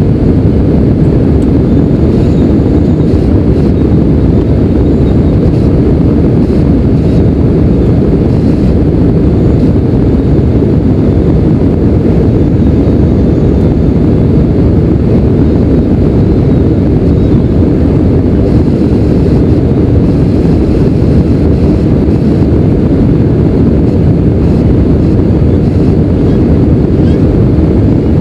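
Steady low roar inside the cabin of an Airbus A319 climbing after takeoff: jet engine and airflow noise heard from a window seat.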